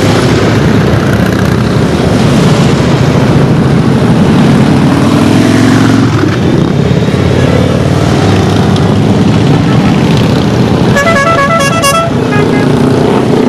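A procession of large cruiser and touring motorcycles riding past one after another, their engines rumbling loudly and rising and falling in pitch as each bike goes by. Near the end a horn sounds in a quick run of short toots.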